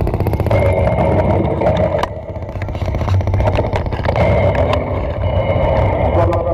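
Live electronic noise music from a laptop and effects gear played through a PA speaker: a dense low rumble with a fast rattling pulse and scattered clicks, dipping briefly about two seconds in.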